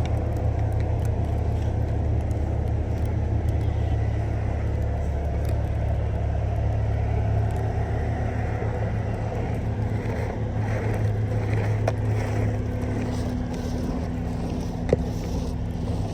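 A car running with a steady low rumble, and a single sharp click about fifteen seconds in.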